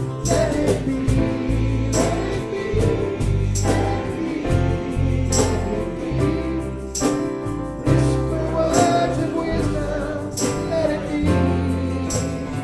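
Music with singing: voices over sustained chords and a regular percussion beat.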